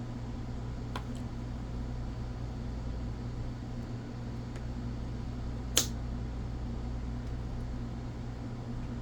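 Steady low electrical or fan hum, with a faint click about a second in and one sharp click past the middle as small model-locomotive parts are handled during reassembly.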